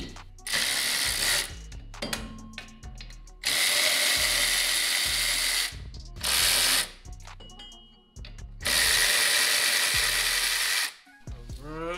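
Power drill spinning out the 10 mm bolts that hold an electric go-kart's motor mount. It runs in four steady bursts of about one to two seconds, with short sharp clicks between them.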